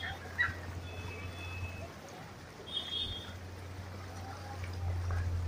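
Floodwater sloshing and trickling as people wade along a flooded street, with faint distant voices and a few short high tones over a low steady hum.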